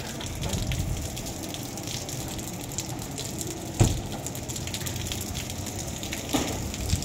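Steady rushing noise, with one sharp knock about halfway through and a smaller one near the end.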